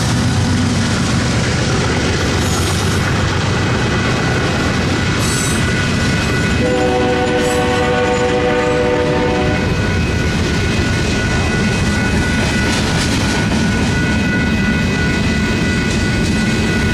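Diesel-hauled freight train passing over a grade crossing: the last locomotive's engine goes by at the start, then freight cars roll past with wheels clacking over the rail joints. A multi-note train horn sounds for about three seconds midway through.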